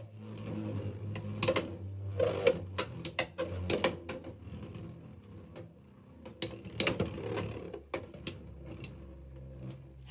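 Phoenix Flare and Wizard Rod Beyblade X tops spinning out a stamina battle: a steady whirring hum broken by scattered clicks and clacks as they knock into each other and the stadium, with a cluster of clicks about two thirds of the way in.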